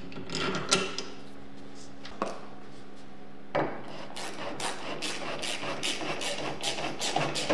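Parts of a drift trike being fitted by hand: a few scattered knocks, then from about three and a half seconds in a fast, even run of clicks, three or four a second, as the rear wheel is worked on its axle.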